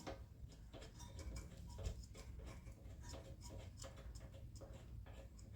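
Socket wrench ratcheting, a run of light irregular clicks, several a second, as a spark plug is screwed back into a small mower engine.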